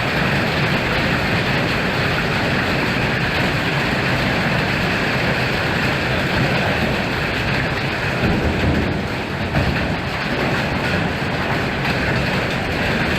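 Summer storm of strong wind and heavy rain, a loud, steady, unbroken rushing noise with a low rumble underneath.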